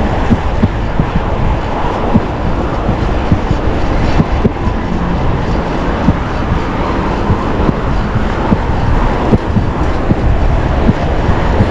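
Loud, steady rush of wind and street traffic noise heard while riding a fixed-gear bicycle, with frequent small knocks and clicks scattered through it.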